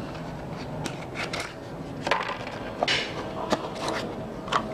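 Hard plastic casing pieces being handled: several light clicks and knocks with some rubbing as the parts are picked up and turned over.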